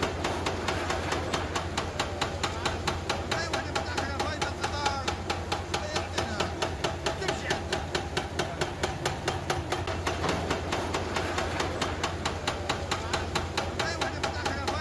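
A rapid, even ticking or tapping beat, about four to five strikes a second, over a steady low hum, with faint men's voices talking underneath.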